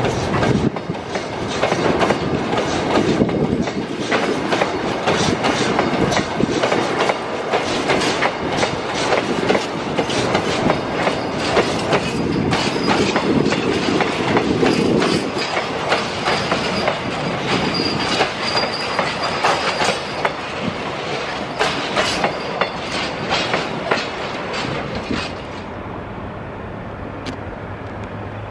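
Freight train of tank wagons and boxcars rolling past, its wheels clattering over the rail joints in a dense, irregular run of clicks, with a thin high wheel squeal partway through. The clatter dies away as the last wagons pass, near the end.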